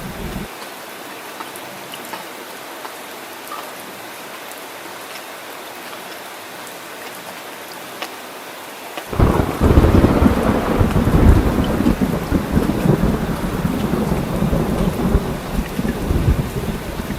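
Steady hiss of heavy rain, then about nine seconds in a loud roll of thunder breaks in suddenly and keeps rumbling under the rain.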